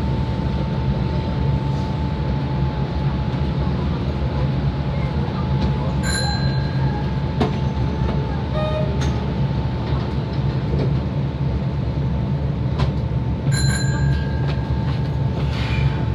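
Kobe Municipal Subway 3000 series car with Hitachi GTO inverter drive, running through the tunnel as heard from inside the car: a steady low running rumble with a constant high whine. Two brief high squeals come about six seconds in and again near fourteen seconds.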